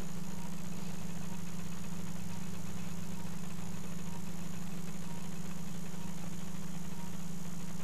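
A steady low mechanical hum that holds the same pitch and level throughout.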